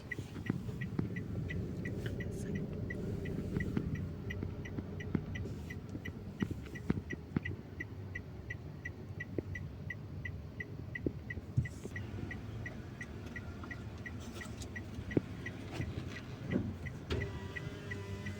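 A railway warning bell dinging rapidly and evenly, about three strikes a second, over the low rumble of engines.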